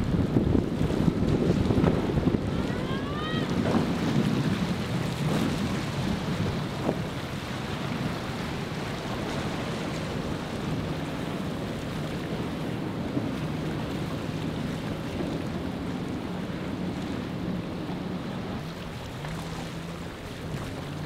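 Mercury outboard on a Boston Whaler center-console running through rough inlet water, with hull spray and waves splashing and wind buffeting the microphone; the sound is loudest at first and eases as the boat pulls away.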